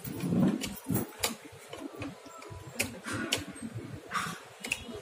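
Scattered clicks and light knocks of a screwdriver and small parts being handled on a window-type air conditioner's casing, with a duller, louder bump about half a second in.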